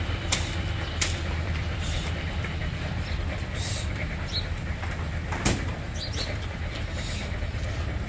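Outdoor yard noise: a steady low rumble with scattered sharp knocks, and a couple of short bird chirps about halfway through.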